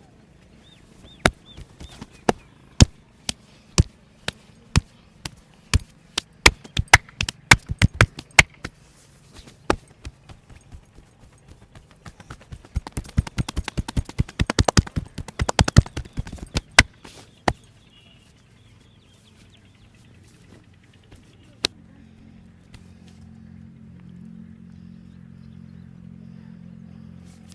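Sharp hand slaps and chops on a person's head and shoulders during a barber's massage. Single loud smacks come about a second apart at first, then a fast flurry of chopping strikes for about four seconds, then a few last slaps. Near the end a steady low hum sets in.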